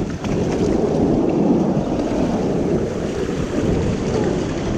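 Water rushing under a raft sliding down a water-park tube slide, with wind buffeting the microphone in a steady, loud rumble.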